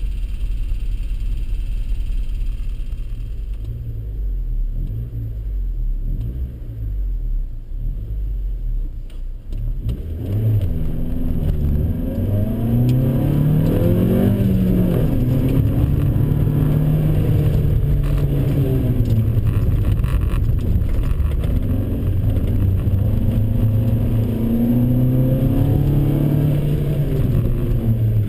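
Honda CRX's four-cylinder engine heard from inside the cabin, idling low at first. About ten seconds in it revs up hard, then rises and falls in pitch again and again as the car accelerates, shifts and lifts through a slalom course.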